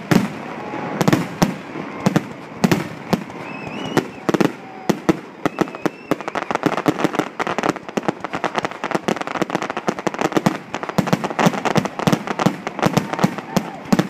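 Fireworks display finale: aerial shells bursting in loud bangs about once a second, thickening after about six seconds into a rapid barrage of bangs and crackles.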